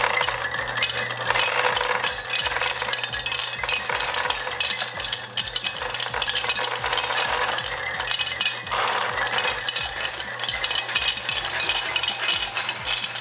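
Marbles clattering and rattling continuously as a conveyor-belt marble lift carries a large load of them, with a steady low hum underneath.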